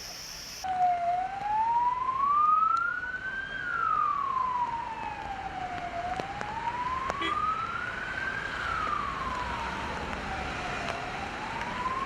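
Emergency vehicle siren in a slow wail, its pitch rising and falling about once every five seconds, starting about a second in.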